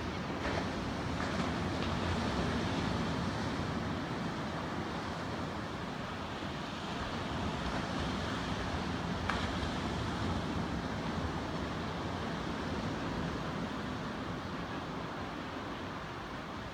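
Steady wash of ocean surf breaking on the beach, with wind buffeting the microphone.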